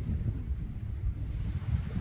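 Wind buffeting the microphone: an uneven low rumble, with a brief faint high chirp about two-thirds of a second in.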